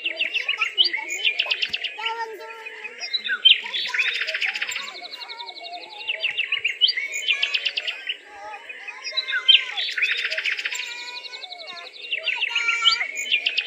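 Birds chirping and singing, with a burst of rapid high chirps coming back every few seconds over softer, lower calls.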